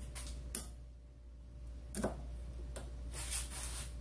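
Snap ring pliers and a steel snap ring clicking and scraping against a new ball joint pressed into a lower control arm, as the ring is worked into its groove. A few sharp metal clicks, the loudest about two seconds in, over a steady low hum.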